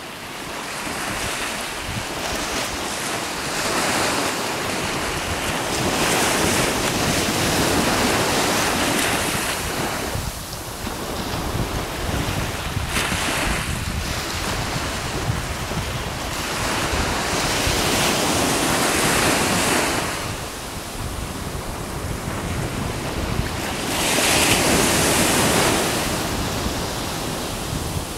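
Wind buffeting the microphone over the wash of ocean waves, a rushing noise that swells and eases every few seconds.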